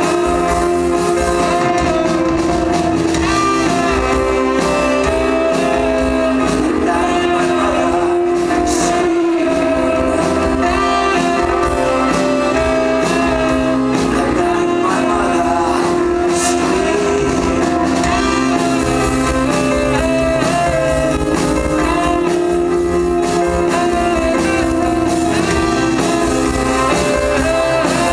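Live band playing amplified music with keyboards, electric guitar and drums, with a singer's voice over long held keyboard tones.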